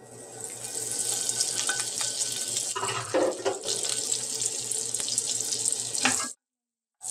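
Butter sizzling as it melts in hot oil in a nonstick wok, a steady frying hiss that cuts off suddenly about six seconds in.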